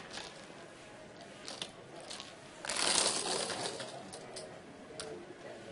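Roulette chips clicking and clattering as the dealer clears the table after a spin, with one louder rattle of chips being swept together about three seconds in.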